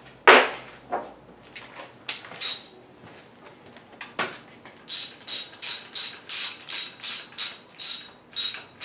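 A few knocks of metal parts being handled, the loudest just after the start. Then, from about five seconds in, a hand ratchet clicks about three times a second as it runs nuts down onto the windage tray studs of a V8 short block.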